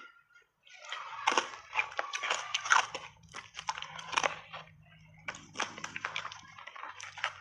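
Hard ice being bitten and chewed, a dense run of crisp crunches that starts about a second in, with a low steady hum underneath.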